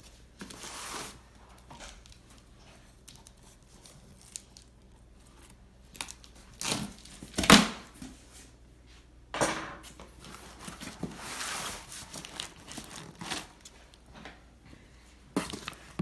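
A cardboard shipping box being opened by hand: packing tape tearing and cardboard flaps and paper crinkling in scattered bursts, the loudest and sharpest about seven and a half seconds in.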